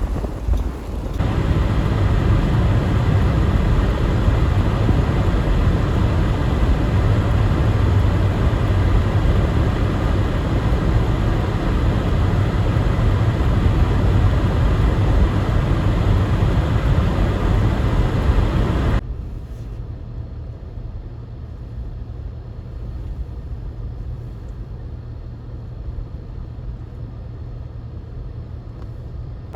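Storm wind rushing over the microphone as a loud, steady noise, which drops suddenly to a quieter low rumble about two-thirds of the way through.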